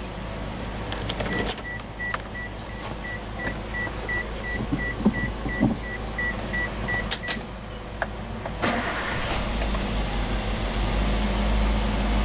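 A car's warning chime beeps rapidly, about three beeps a second, for some six seconds with a few clicks. Then the Daihatsu Terios's four-cylinder engine cranks and starts, settling into a steady low idle.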